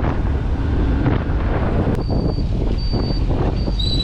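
Wind buffeting the microphone in a steady low rumble, with indistinct voices behind it and a few short, thin high tones in the second half.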